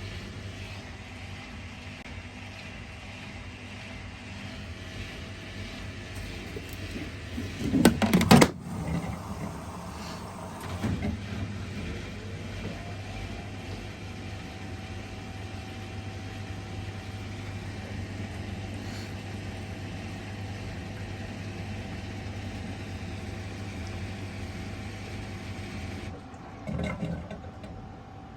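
Hoover H-Wash&Dry 14kg washer-dryer running a drying programme: a steady motor hum, with a few loud knocks as the drum turns, the loudest about eight seconds in and another near the end.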